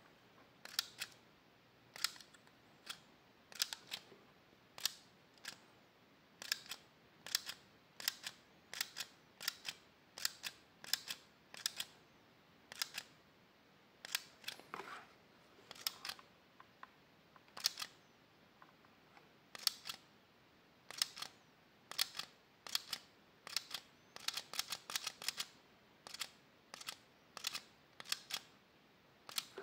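Sharp plastic clicks of a toy Spider-Man projector watch's button, pressed again and again to step through its projected images, about one click a second with some in quick pairs.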